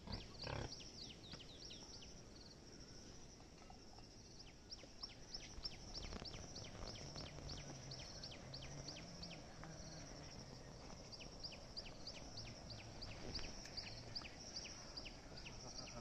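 Faint outdoor insect chorus: a steady high-pitched buzz with a rapid series of short falling chirps, about three a second. A brief thump sounds right at the start.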